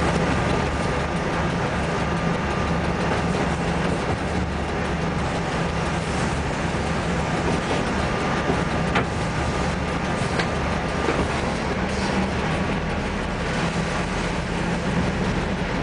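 Steady running noise inside the cab of an ST43 diesel-electric locomotive: the 12-cylinder Sulzer diesel engine drones while the locomotive rolls along the track hauling a train of loaded stone wagons. A thin steady whine runs underneath and fades out about two-thirds of the way through, with a few faint clicks from the track.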